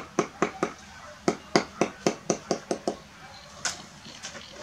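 Steel mason's trowel tapping a brick down into its mortar bed: sharp knocks, about four a second in two quick runs, then two more spaced out near the end.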